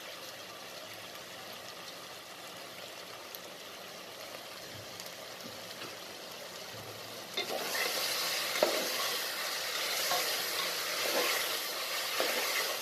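Onions, green chillies and cashews sautéing in oil in an aluminium pressure cooker, a steady sizzle. About seven seconds in the sizzle grows louder as a perforated steel ladle stirs through the mixture, with a few knocks and scrapes of the ladle on the pot.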